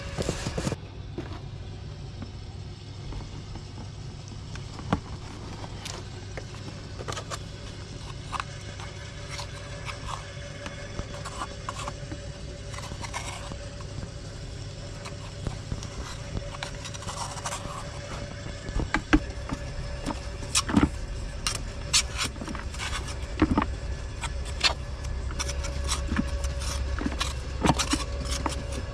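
Sharp metallic clicks and clinks of tools and parts being handled, sparse at first and coming thick and louder in the second half, over a steady low mechanical hum.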